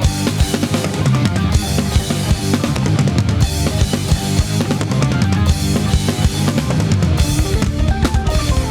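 Drum kit played live over a backing music track, with bass drum and snare hits driving the beat. The strokes become denser and more even near the end.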